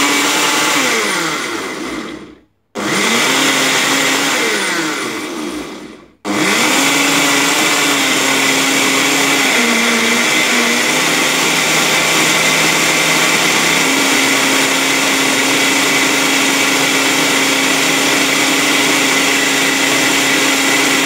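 Personal blender's motor blending chunks of beetroot, pineapple, ginger and citrus with a little water into juice. Two short pulses that each die away, then from about six seconds in a steady continuous run.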